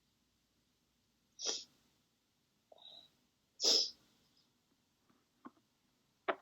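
A woman's stifled sneezes: two short, sharp bursts about two seconds apart, the second the louder, with a smaller breathy sound just before it and a few faint clicks near the end.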